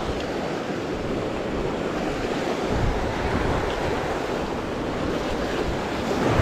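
Sea surf washing over shoreline rocks, a steady rushing noise, with wind buffeting the microphone.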